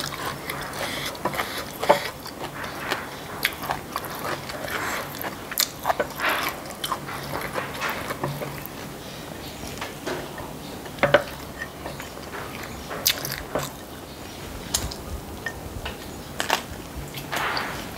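Close-miked eating by hand: chewing and biting with crisp crunches and small clicks at irregular moments, and fingers working rice on a ceramic plate.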